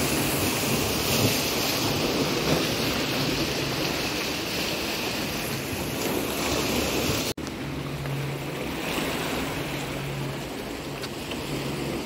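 Steady rush of sea surf mixed with wind on the microphone. About seven seconds in the sound cuts out for an instant and comes back duller, with a low hum that comes and goes.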